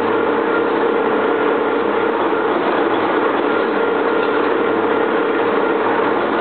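Double-column vertical turning lathe (C52 series) running, its table turning a large metal ring against the cutting tool: a steady mechanical running noise with a constant hum-like whine.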